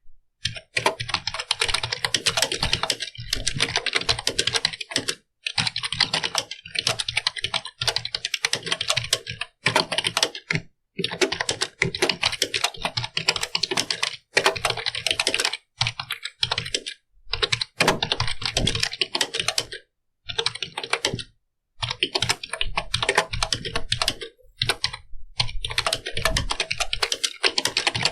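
Computer keyboard being typed on, quick runs of keystroke clicks broken by brief pauses every few seconds.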